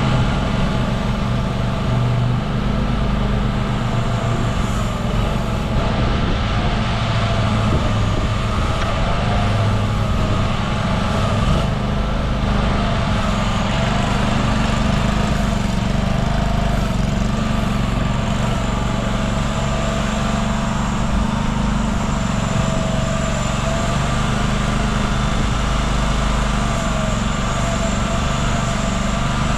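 CFG Industrial MX20R mini excavator's engine running steadily, with small shifts in pitch.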